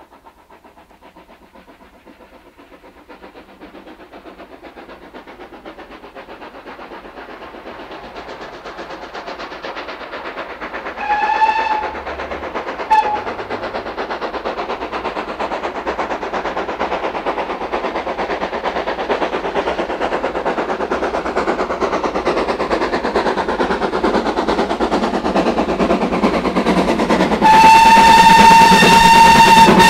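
A steam locomotive approaches, its exhaust beats and running noise growing steadily louder. The whistle gives a short blast about eleven seconds in and a brief pip soon after, then a long, loud blast near the end as the train comes close.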